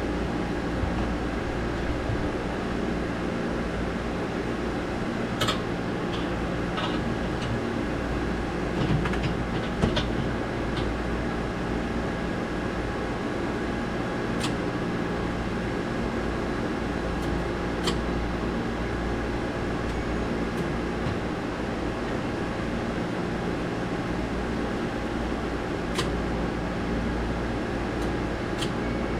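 Steady drone of running machinery, with a low hum and several steady tones, broken by a few sharp clicks.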